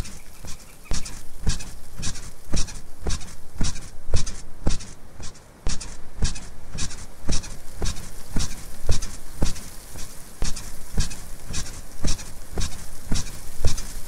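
Bed squeaking rhythmically, about two squeaks a second, with a brief break about five and a half seconds in.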